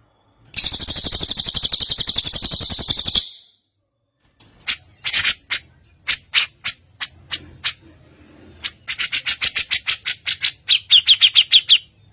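Songbird song: a fast, high rattling trill, then a string of sharp separate chips, then another rapid trill ending in a run of lower repeated notes.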